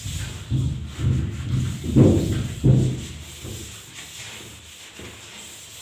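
Hand scrubbing with a cleaning product: a series of rubbing strokes about every half second, each with a dull low thud, easing off about three and a half seconds in.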